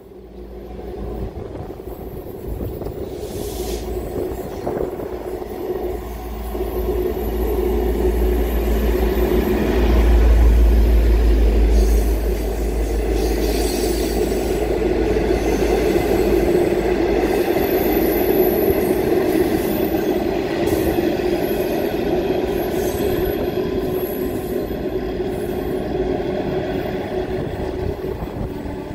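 V/Line N class diesel-electric locomotive hauling a set of carriages past: its engine rumble grows as it approaches and is loudest about ten seconds in, then the steady rolling noise of the carriages running by continues until it fades at the end.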